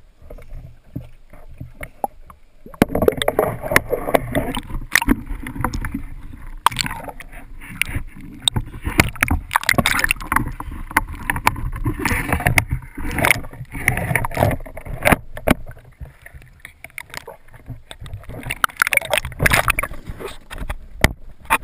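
Water sloshing, gurgling and rushing past a camera mounted on a speargun as it dips in and out of the surface, with frequent irregular knocks and clicks from the gun being handled.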